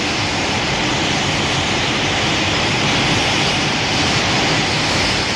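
Steady, even rushing hiss with no pitch to it: a Baragon sound effect from the 1960s Showa monster films.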